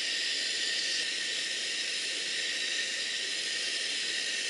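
Backpacking gas stove burner hissing steadily while it melts snow for water.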